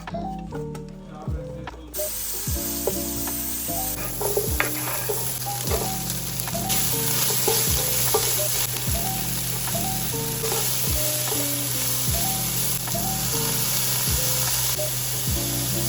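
Food sizzling in a frying pan, a steady hiss that starts about two seconds in, under background music with a steady beat. A low steady hum joins about four seconds in.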